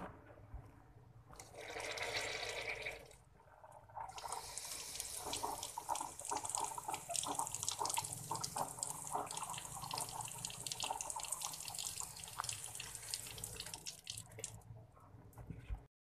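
Water running and splattering from a hose at a tap. There is a short spell about a second and a half in, then a steadier run from about four seconds that fades near the end.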